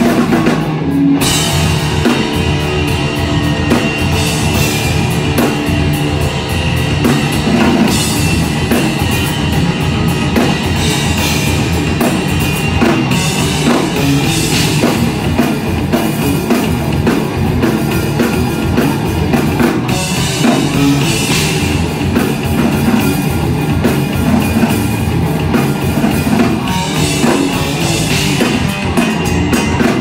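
Punk rock band playing live and loud: distorted electric guitars, bass and a driving drum kit.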